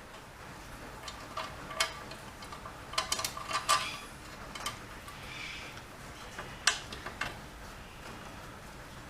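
Metal tools and parts being handled: a scattered series of light clinks and taps, some with a short metallic ring, bunched in a quick flurry a few seconds in and a couple more about two-thirds of the way through.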